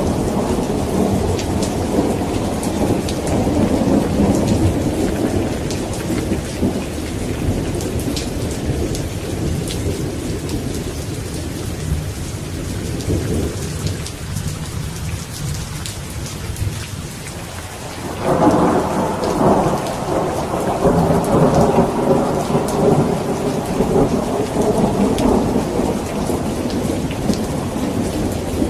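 Steady heavy rain with rolling thunder. The rumble dies away towards the middle, then a new peal of thunder breaks in sharply about two-thirds of the way through and rolls on.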